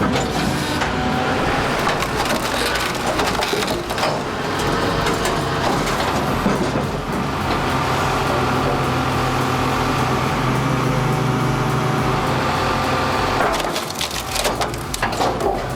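Firewood processor splitting logs: wood cracking and splintering over the steady hum of the machine's motor.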